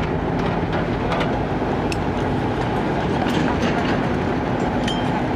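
Kubota mini excavator's diesel engine running steadily under hydraulic load as the arm works, with a few sharp clanks and knocks from the bucket and linkage.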